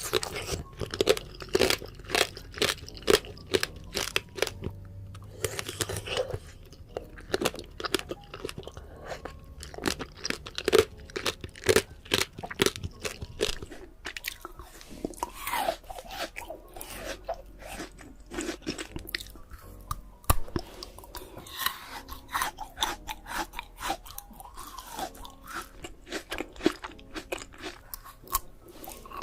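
Close-miked chewing of fresh fruit: a rapid, irregular run of crisp crunches with wet chewing between them.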